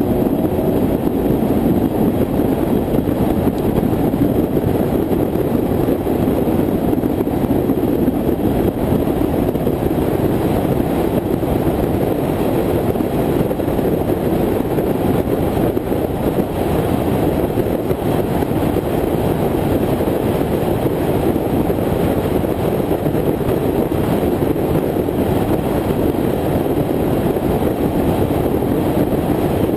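Steady, muffled road and wind noise of a car cruising at highway speed, picked up by a camera mounted on the car's hood.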